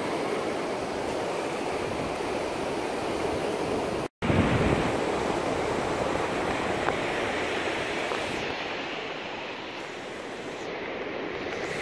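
Ocean surf and wind on a sandy beach: a steady rushing noise, broken by a brief cut about four seconds in.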